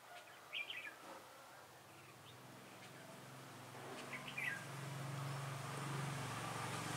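Red-whiskered bulbuls giving short, quick chirping calls: one brief phrase about half a second in and another about four seconds in. A low steady hum rises underneath from about three seconds in.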